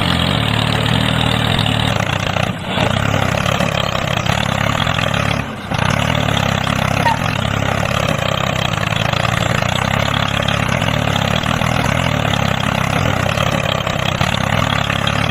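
Tractor engine running steadily, with two brief dips about two and a half and five and a half seconds in.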